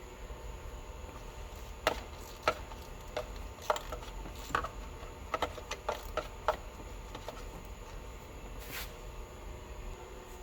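Hand tools and metal engine parts clicking and knocking irregularly as a bolt and hose are worked loose in an engine bay: a dozen or so sharp clicks, bunched in the middle, over a faint steady hum.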